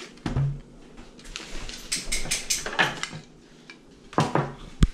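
Plates and objects being handled and set down on a glass-topped dining table: scattered knocks and clatter, with two sharp clinks near the end as a plate goes down.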